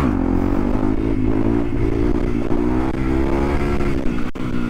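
Fuel-injected single-cylinder dual-sport motorcycle engine under way, its pitch rising just after the start and then holding steady at a cruising pace, with wind rumble on the microphone.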